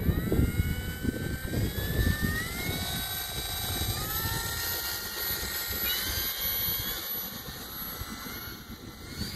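Electric brushless motor and propeller of an E-flite Air Tractor RC plane whining, the pitch climbing in steps as the throttle is opened for the takeoff roll. The whine fades as the plane moves off down the runway, with gusts of wind rumbling on the microphone early on.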